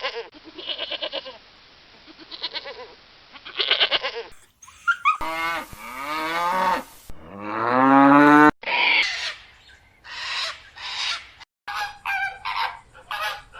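A run of separate farm animal calls cut one after another: quick repeated calls, then a cow mooing twice in long drawn-out calls, then more short repeated calls. The clips are divided by sudden silent breaks.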